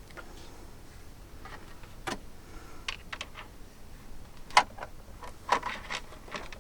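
Irregular clicks and knocks from handling the water tank and lid of a mini air conditioner while it is being filled, with the loudest knock about four and a half seconds in and a quick cluster of clicks just after.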